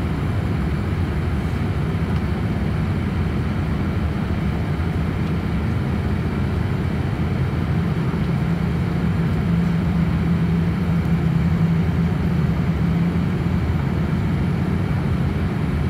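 Cabin noise of a Boeing 787-8 climbing out, heard from a seat over the wing: the steady low roar of the engines and the airflow past the fuselage. A low hum within it swells a little for a few seconds around the middle.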